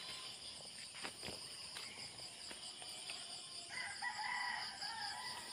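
A rooster crows once, faintly, about four seconds in, one call lasting just over a second, over steady high-pitched insect trilling.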